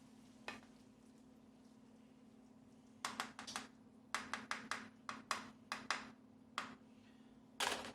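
Kitchen utensils and dishes knocking: an irregular run of quick, sharp clicks and taps starting about three seconds in, with a longer scrape near the end, over a steady low hum.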